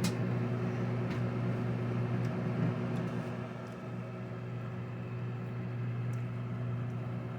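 Microwave oven running: a steady low hum with a few faint ticks.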